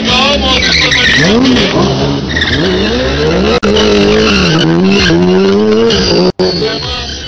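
Stunt sport-bike engines revving hard up and down, with tyre squeal from wheels sliding on asphalt. The sound breaks off for an instant twice.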